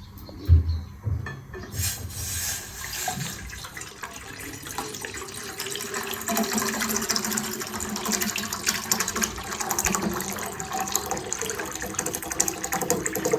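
Water being poured into a cooking pot, about a litre, in a steady continuous stream that starts about two seconds in, after a couple of low knocks.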